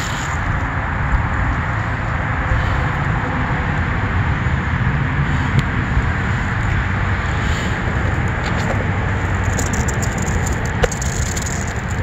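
Steady outdoor city ambience: a low rumble of traffic and wind, with a few faint clicks.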